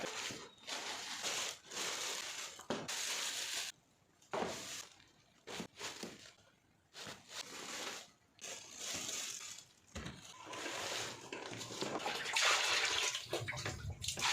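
Water splashing and running in intermittent bursts of a second or two, with short pauses between.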